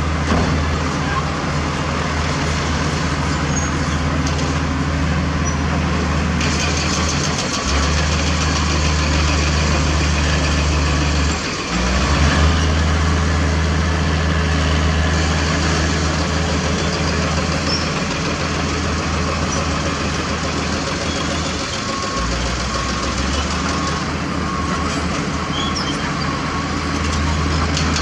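Heavy diesel engines of earthmoving machinery running, the low engine note shifting several times, with a brief dip about eleven seconds in.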